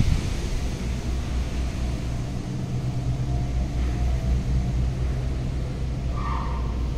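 A steady low mechanical hum, with a short higher-pitched blip about six seconds in.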